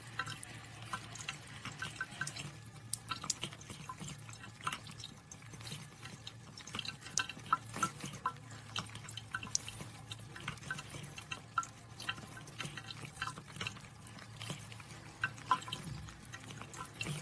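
Water trickling and dripping in a small home aquarium: many small irregular splashes and drips over a low steady hum.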